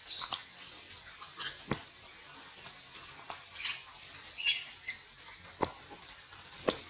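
Baby monkey squealing in short high-pitched bursts, several times over a few seconds, with a few sharp clicks in between.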